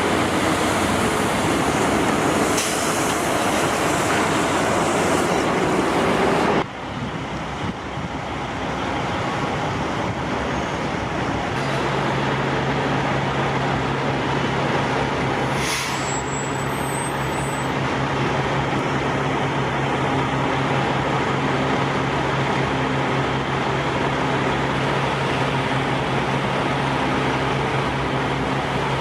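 Road traffic and vehicle engine noise. The sound drops abruptly about seven seconds in, a steady low engine hum comes in after about eleven seconds, and there is a brief high chirp around sixteen seconds.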